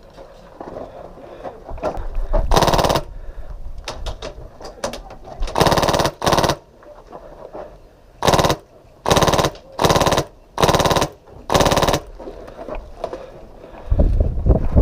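Full-auto bursts from an HPA-powered airsoft MK46 (Polarstar Fusion engine), a rapid buzzing rattle of shots. About eight short bursts of roughly half a second each, spread from a couple of seconds in to about twelve seconds in.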